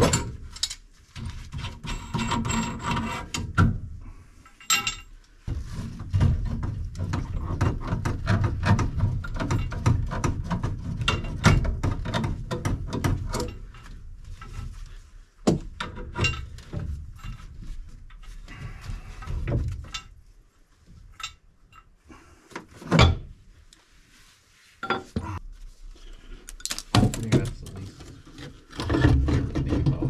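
Hands working inside a York gas furnace's burner compartment, taking parts apart: scattered clicks, knocks and light metal clatter, with a quieter stretch of separate clicks past the middle.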